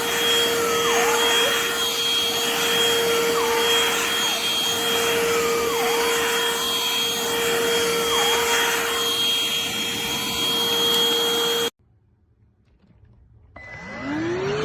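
Bissell Pet Hair Eraser cordless hand vacuum running with a steady whine, its pitch dipping briefly and recovering every second or two. It cuts off abruptly near the end, and after a short silence the motor spins up again with a rising whine.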